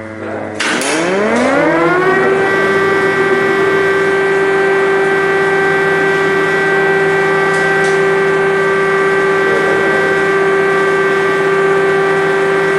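Air-raid siren starting up about half a second in, its pitch rising for a second or so, then holding one steady tone.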